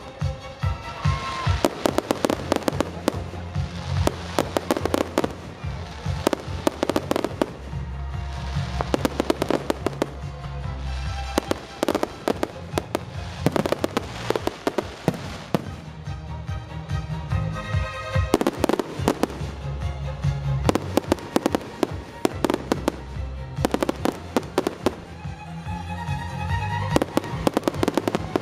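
Aerial firework shells bursting in quick succession, with many sharp bangs and crackles, while music with a steady bass plays throughout.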